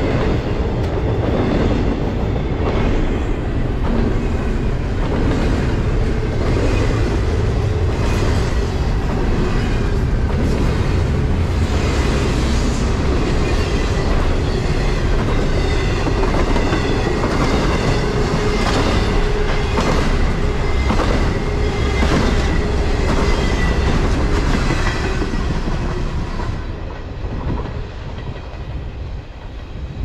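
Double-stack intermodal container freight train rolling past at close range, its wheels clicking in a steady rhythm over the rail joints. The sound drops off suddenly near the end as the last car goes by.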